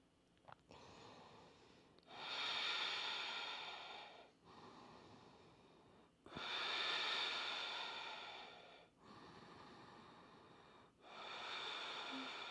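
A woman's slow, deep breathing while she holds a yoga bridge pose. About three breath cycles are heard: each louder breath lasts two to three seconds and is followed by a quieter one.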